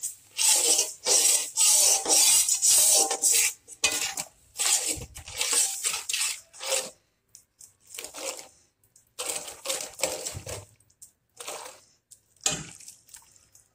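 A spoon stirring and scraping through a wet yogurt masala in a cooking pot, in irregular strokes: close together for the first few seconds, then more spaced out.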